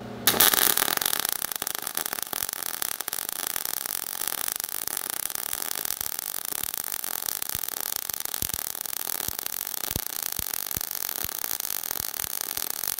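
MIG welding arc in globular transfer (0.030 in wire, 75/25 argon-CO2, 20.5 volts, 250 inches per minute) struck about a third of a second in, then burning steadily: a loud hiss and crackle with irregular pops throughout. The popping, heavy sound is what tells the welder the wire feed speed is too low for this voltage, so the arc is unstable and throwing spatter.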